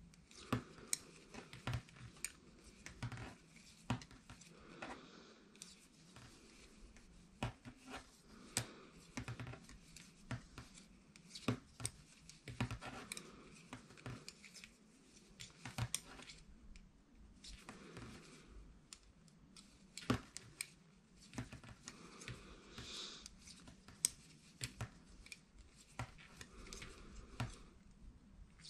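Knitting needles clicking and tapping irregularly as stitches are worked by hand, alternating knit and purl along the row.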